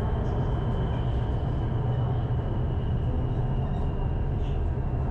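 Steady low rumble of a metro train running at speed, heard from inside the carriage, with a faint high whine that falls slightly in pitch.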